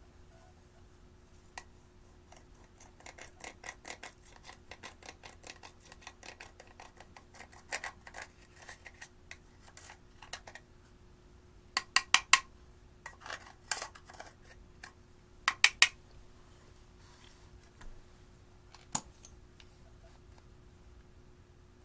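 Slime being squeezed and poked by hand: a run of small clicks and crackles, then two clusters of sharp, loud pops about midway through and a single click near the end.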